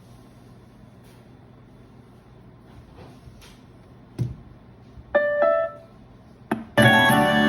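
A handling thump, then a brief electronic tone, then music, a song with keyboard notes, starts playing loudly through a Hoco BS45 Bluetooth speaker near the end.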